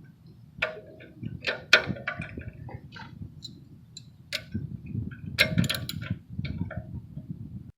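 Irregular metallic clicks and clinks of hand tools as an oxygen-sensor socket on an extension is fitted and worked onto the sensor, with a small cluster of clicks near the middle and another near the end.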